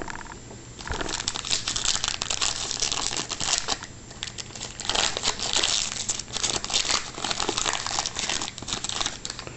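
Foil trading-card pack wrapper crinkling and being torn open by hand, starting about a second in and continuing with a brief lull partway through.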